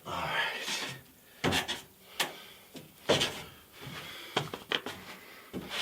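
Knocks, clicks and scraping rubs from electrical conduit and fittings being handled and fitted into place, with about five sharp knocks spread through the scraping.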